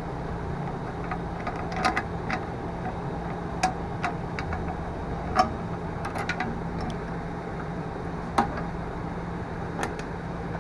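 Scattered light clicks and taps of metal parts being handled, about half a dozen at irregular intervals, as a control cable is taken off a lawn mower engine. A steady low hum sits underneath.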